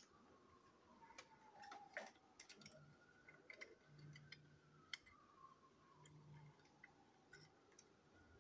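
Near silence: quiet room tone with faint, irregular clicks and ticks and a faint wavering tone.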